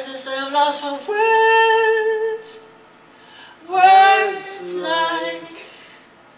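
A high solo singing voice with little or no accompaniment: a few short notes, one long held note, a pause, then a note that swells up and down and a last note that falls away.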